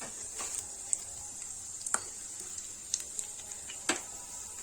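Almonds and cashews sizzling in hot ghee in a pan, a steady high hiss, with a few sharp clicks of a spoon against the pan as the nuts are taken out.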